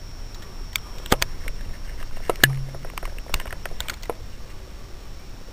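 Pistol crossbow firing and being handled: a series of sharp snaps and clicks, the loudest about two and a half seconds in, followed by lighter mechanical clicks.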